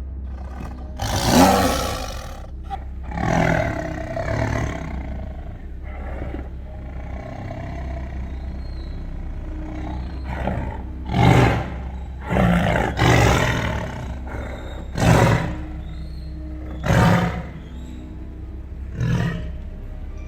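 Tiger roaring again and again: a string of separate deep roars and shorter grunting calls, coming about every second or two in the second half.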